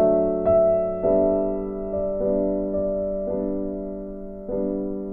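Background music: a slow piano tune, each note or chord ringing and fading before the next comes in about once a second.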